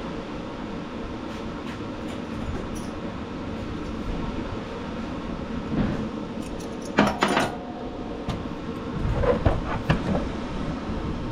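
Shop fan running steadily, with a few sharp metal clinks of small bolts and tools being handled about seven seconds in and some knocks a couple of seconds later.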